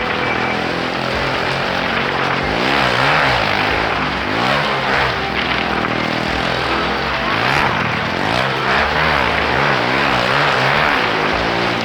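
Motorcycle engines running hard inside a wooden wall-of-death drum as the riders circle the vertical wall, the engine note swinging rapidly up and down over and over.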